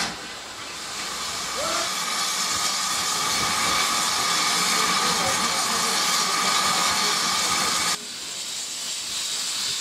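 Steam locomotive standing at a station platform, hissing steam steadily with a faint whistling tone in the hiss. The hiss drops in level about eight seconds in.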